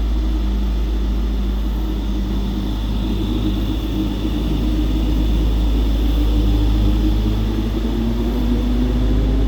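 Electric train at the platform: a loud, steady low rumble with humming tones from its drive. Near the end the hum begins to rise in pitch.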